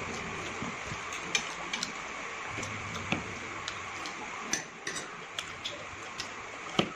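Eating at a table: a fork and spoon clicking now and then against china plates and a steel bowl, about a dozen sharp irregular clicks, over a steady background hiss.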